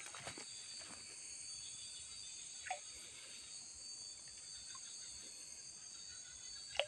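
Faint, steady high-pitched chorus of night insects, with two brief sharp sounds, one a little under halfway through and one near the end.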